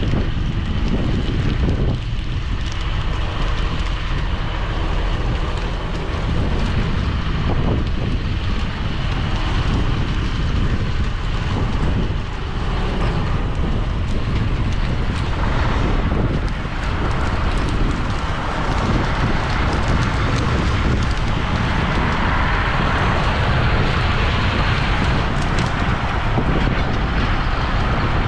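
Heavy farm machinery running steadily in the field, a low, constant engine rumble with wind buffeting the microphone.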